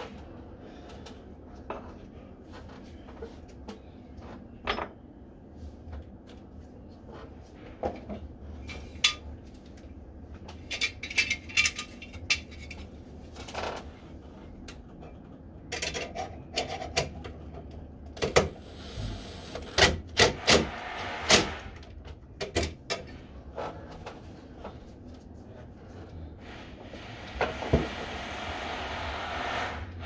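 Scattered metallic clicks, taps and knocks of hand tools and fittings on a Lockwood door closer being fitted to a door, over a low steady hum. Near the end a steady rubbing noise builds.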